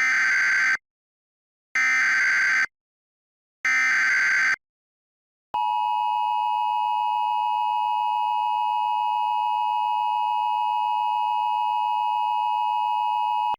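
Emergency Alert System SAME header: three short, identical, buzzy digital data bursts about a second apart. They are followed by the steady EAS attention tone, held for about eight seconds and then cut off, the signal that an alert message is about to be read.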